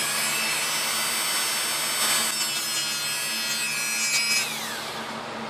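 Small handheld mini rotary tool running at high speed with a sanding disc, a steady high whine with a grinding hiss as it sands a small photo-etched metal part to roughen it for soldering. The motor winds down near the end, its whine falling in pitch.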